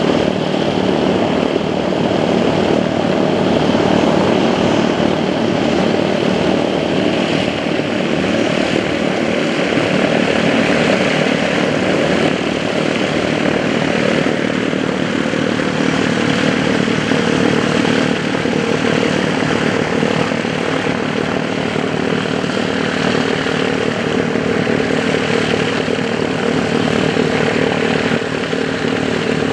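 Aircraft jet engines running steadily: a constant loud roar with a steady hum underneath.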